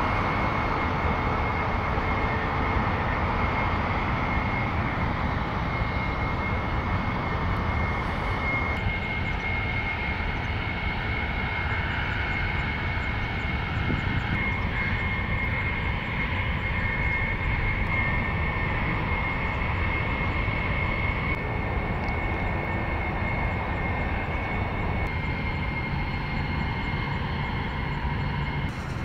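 Jet airliner engines running, heard from beside the airfield: a steady broad rumble with a constant high whine over it. The sound shifts abruptly several times, as one aircraft gives way to another.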